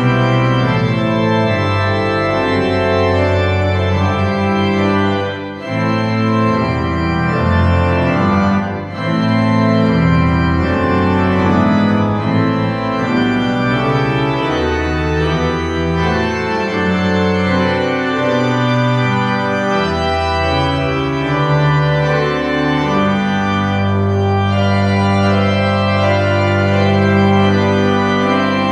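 Church organ played with full, held chords that change every second or so over deep bass notes, with a couple of brief breaks between phrases early on.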